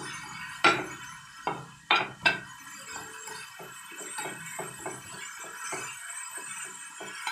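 Dried fish frying in oil and masala in a pan, with a steady sizzle full of small crackles. A few sharp clinks of a utensil against the pan come in the first couple of seconds.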